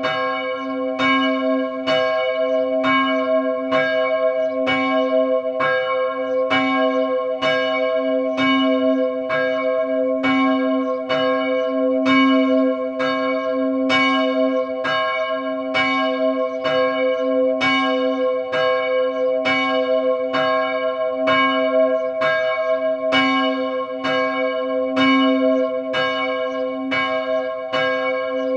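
A church bell ringing in a fast, even rhythm, about two strokes a second. Its ring carries on between strokes, so each new stroke lands on the sound of the last.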